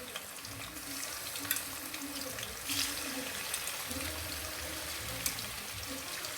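Chicken breast pieces frying in oil in a pan, a steady sizzle, with a few clicks of a utensil against the pan.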